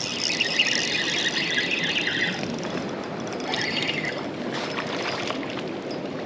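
Spinning reel's drag whining as a hooked trout pulls line off the spool, in a long run and then a shorter one about three and a half seconds in, over wind and water noise.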